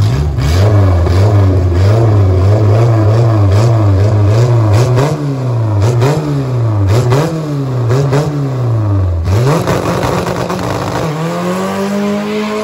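Car engine at a drag-strip start line, revved up and down over and over, about once a second. Near the end the revs dip, then climb in one smooth rise as the car pulls away.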